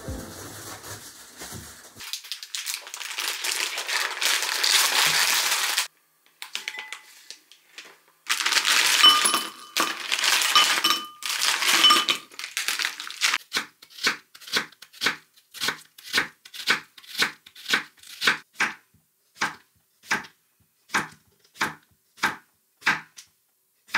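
A plastic bag crinkling and rustling, then shrimp poured from the bag into a glass bowl with a few clinks. After that comes a knife slicing a cucumber on a wooden cutting board, an even run of cuts about two a second.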